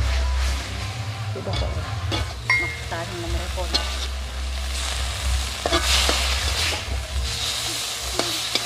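Metal spatula stirring and scraping shredded tuna in an aluminium wok as it fries dry into fish floss, with a sizzling hiss and repeated clinks and scrapes of the spatula against the pan, over a steady low rumble. Near the end the spatula is scraping the last bits from an almost empty wok.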